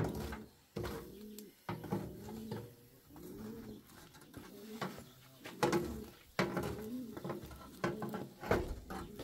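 Pigeons cooing, a run of low rounded calls repeated throughout, with scattered sharp clicks and knocks among them.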